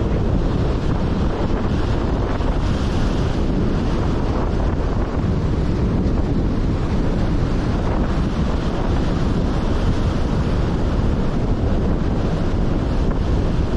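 Strong wind buffeting the microphone with a steady low rumble, over rough sea surf breaking.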